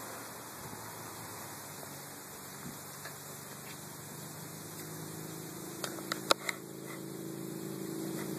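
Steady hiss and hum. A little past halfway a lower, steady motor-like hum fades in, and about a second later comes a quick cluster of sharp clicks, one much louder than the others.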